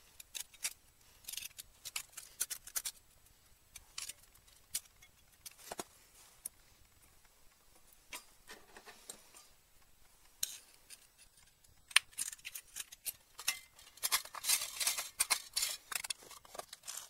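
Thin stainless steel electrode plates clicking and scraping as they are handled and slid into the slots of a 3D-printed plastic housing. The sound is scattered light metallic clicks, with a denser run of scraping near the end.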